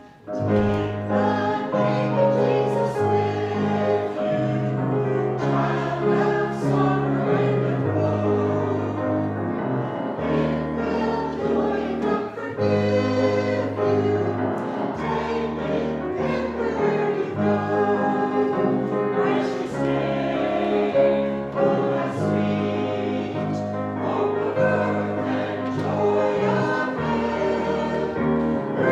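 A hymn sung by many voices over sustained low bass notes, starting just after the opening.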